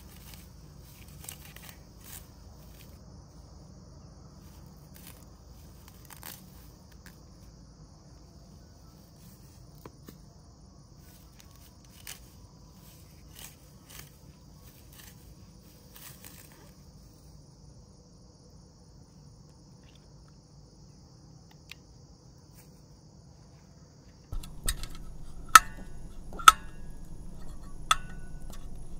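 Insects chirring steadily in a high-pitched drone, with scattered faint clicks and rustles. About 24 seconds in, the insects stop and the background becomes louder with a low hum, broken by several sharp clicks.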